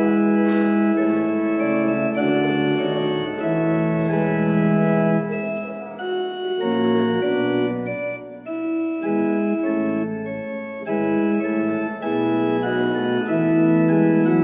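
Organ music: slow, held chords with the notes changing every second or so, a little softer in the middle.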